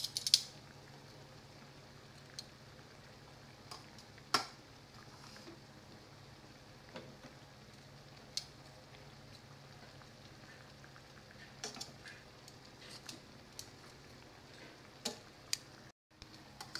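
Metal kitchen tongs clicking and tapping against a stainless pan now and then as onion rings are laid over simmering pork steak, with a steady low hum underneath. The sharpest click comes just after the start, another about four seconds in, and a cluster of lighter taps near the end.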